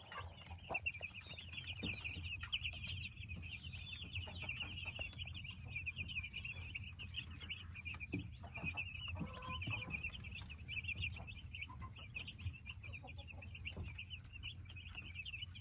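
A brooder full of week-old meat chicks peeping continuously, with many short, high chirps overlapping, over a low steady hum.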